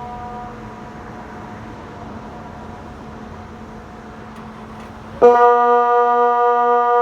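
Kockum Sonics DELTA 6 electronic siren starting one of the low steady tones of the water alarm (Wasseralarm) about five seconds in: an abrupt, loud, unwavering low tone. Before it, a fainter tone from a more distant siren fades out about half a second in.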